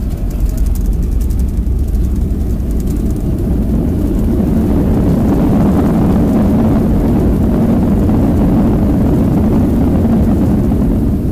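Cabin sound of a Boeing 737-300 on its landing rollout, its CFM56 engines heard through the fuselage: the engine noise swells about four seconds in and stays loud and steady over a deep rumble, as reverse thrust is applied after touchdown with the ground spoilers up.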